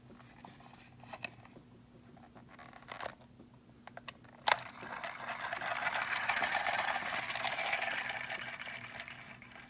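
Plastic clicks from handling a Bandai Fantasy Raise Buckle toy, with one sharp click about halfway through. It is followed by a crackling, hissing noise that swells for a few seconds and then fades.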